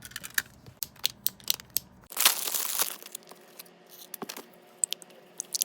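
A package being cut and torn open by hand: scattered crinkling and crackling of the packaging, with one short, louder tearing rip about two seconds in.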